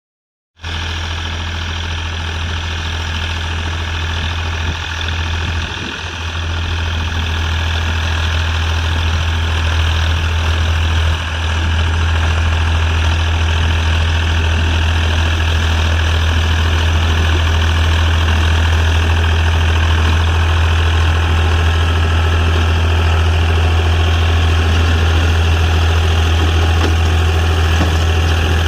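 Classic Ford tractor engine running steadily with a strong low drone, starting suddenly about half a second in.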